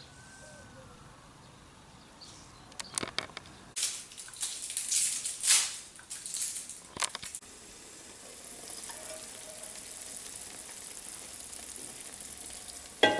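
Food sizzling in a frying pan: a steady high hiss over the last five seconds, after a few seconds of irregular noisy bursts.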